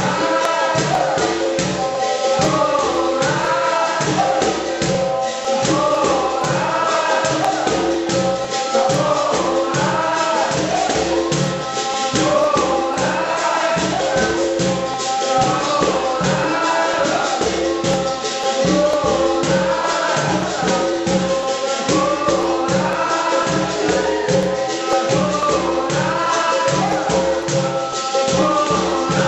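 Capoeira Angola roda music: berimbaus and a pandeiro keep a steady rhythm under group call-and-response singing.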